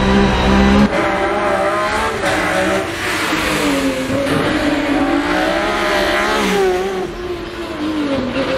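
BMW E46 hill-climb race car's engine revving hard. A steady high note for about the first second gives way abruptly to revs that rise and fall repeatedly as the car is driven flat out.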